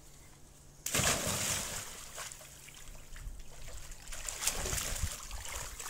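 A child jumping into a shallow inflatable paddling pool: a sudden big splash about a second in, then irregular splashing of the water as he moves about in the pool.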